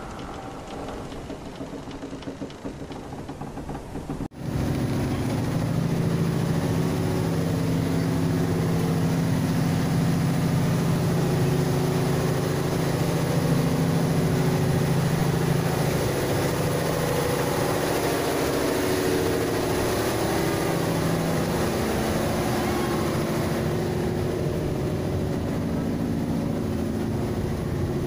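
Inboard engine of a traditional wooden passenger boat running steadily under way. It sets in suddenly about four seconds in, a loud, even drone with a strong low hum.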